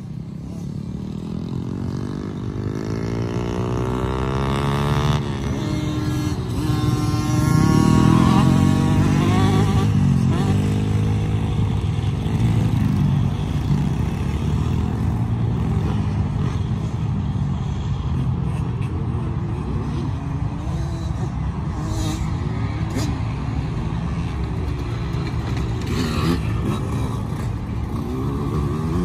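Several small kids' motocross bikes riding a dirt track, their engines revving up and down through the gears. The sound grows louder over the first eight seconds or so, then carries on steadily.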